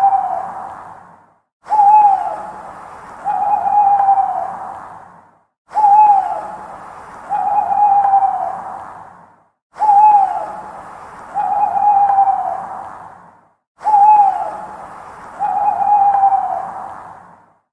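Owl hooting: a short falling hoot followed by a longer hoot, the same two-note phrase repeating about every four seconds with a brief silence between repeats.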